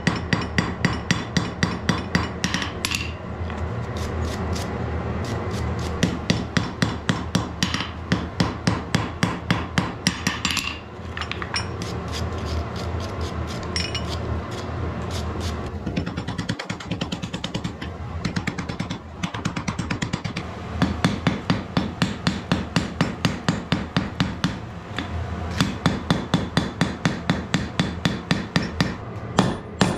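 Hand hammer striking a red-hot bloomery-iron spearhead on a steel anvil, in quick runs of blows about three a second. A steady rushing noise fills the pauses between runs.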